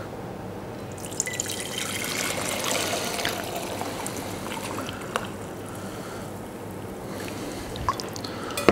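Poultry stock being poured into a glass swing-top jar: a steady trickling pour that starts about a second in and fills the jar, with a couple of sharp clicks near the end.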